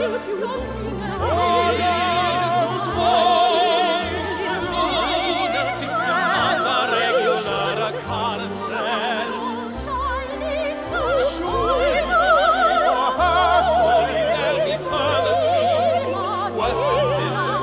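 Operatic aria sung by a high voice with wide vibrato, over orchestral accompaniment.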